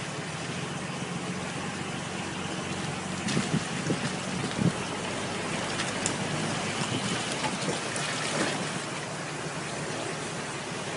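Off-road 4x4 wading through a muddy creek crossing: its engine running at low revs under a steady rush and splash of water, with a few brief louder knocks and splashes between about three and five seconds in and again near eight seconds.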